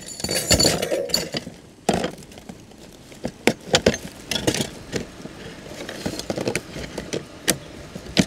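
Clinks, clicks and knocks of cookware and utensils being handled and set down, with a sharp knock about two seconds in.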